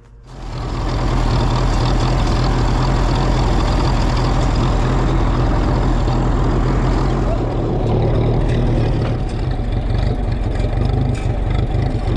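Vintage Ferguson TEA20 tractor's four-cylinder petrol engine running loud and steady, coming in sharply within the first second.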